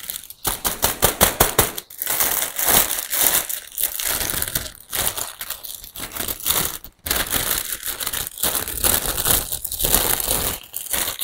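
Clear plastic sleeve wrapped around a potted plant crinkling and crackling as it is handled and pulled off. The crackling is dense and loud, broken by a few short pauses.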